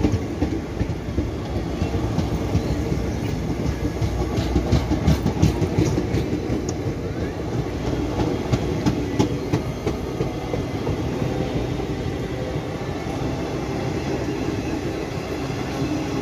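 Passenger coaches of an express train rolling past with a steady rumble, their wheels clicking over rail joints, most often in the middle of the stretch.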